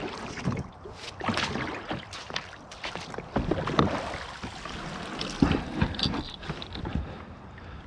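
Plastic sit-on-top kayak being launched from a sandy shore: the hull sliding and splashing into the shallows, with irregular knocks and thumps against the hull as it is boarded, the loudest a little before halfway and about two-thirds of the way through.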